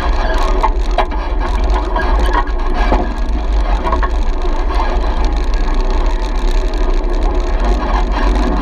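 Off-road vehicle riding a rough dirt trail: its engine runs steadily under a deep rumble, with the body and gear rattling and knocking over the bumps.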